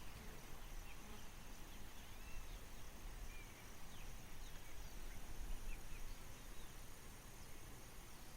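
Faint outdoor ambience: a low steady rumble with a few short, scattered bird chirps, mostly in the first half.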